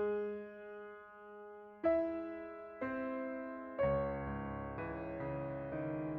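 Background music: slow, gentle piano chords, a new chord struck about every second and left to ring, with a fuller part and lower notes coming in about two thirds of the way through.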